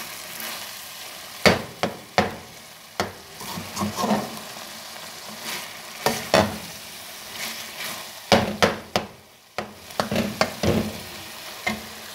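Mutton mince frying in a pan with a steady sizzle, while a metal spoon stirs it, scraping and knocking against the pan at irregular moments.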